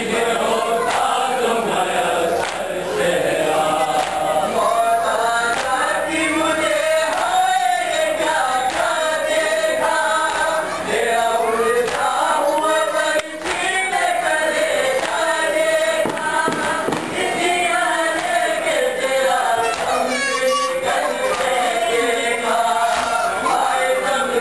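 Group of men chanting an Urdu nauha, a Shia mourning lament, together in a melodic recitation that rises and falls without a break.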